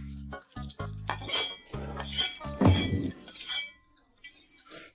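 Chopsticks clinking and tapping against ceramic plates as noodles are eaten, with background music.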